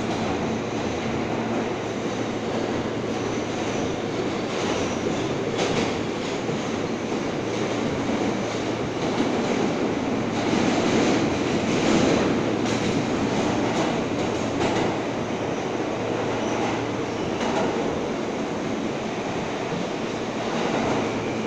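R143 subway train running at speed in a tunnel, heard from inside the car: a steady wheel-on-rail rumble with occasional clacks over rail joints.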